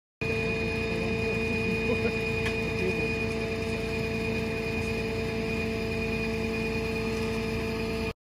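Steady mechanical hum with several constant tones over a low rumble, starting and stopping abruptly.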